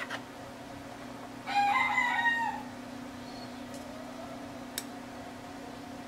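A rooster crows once, about a second and a half in, lasting about a second, over a steady low hum. Two short clicks, one at the start and one near the end.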